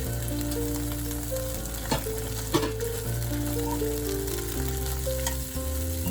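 Food sizzling in a frying pan with stirring, and a few sharp clicks of a utensil against the pan, under steady background music.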